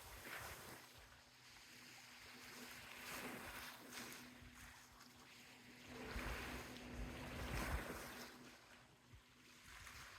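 Soft sea waves washing on a beach, swelling and easing, loudest in a wash about six to eight seconds in. A faint steady hum runs underneath.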